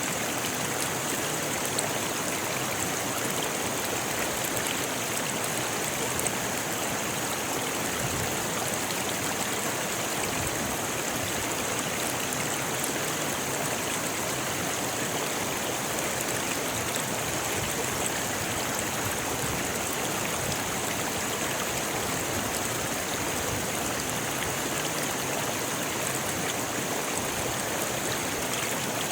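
A rocky river rushing and splashing over stones, a steady hiss of running water.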